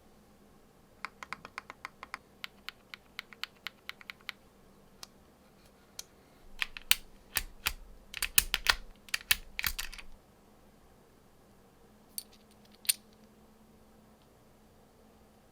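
Keys being typed on a Womier ERA75 mechanical keyboard: a run of quick, even keystrokes, then louder, denser bursts of keystrokes about halfway through, and two single key clicks near the end.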